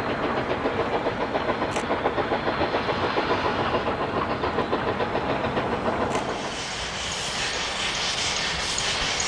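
Narrow-gauge freight cars and caboose rolling past, their wheels making a fast, rhythmic clatter on the rails. About six seconds in this gives way to a steadier hiss of a steam locomotive working toward the listener.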